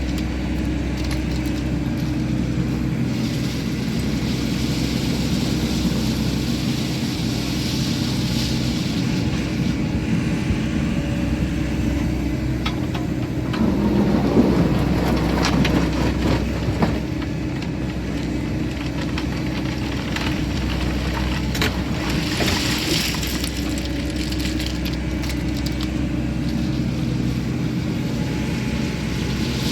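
Sany SY80 excavator's diesel engine running steadily as it works. About halfway through, a louder stretch of knocks and rattles.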